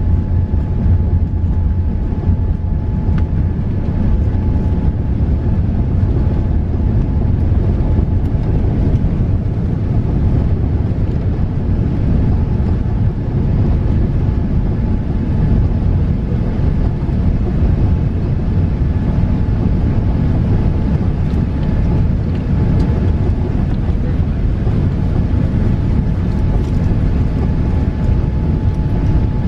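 Airbus A380 cabin noise at takeoff thrust: its Engine Alliance GP7200 turbofans running with a loud, steady low rumble and a thin steady tone above it, through the end of the takeoff roll, liftoff and the climb away.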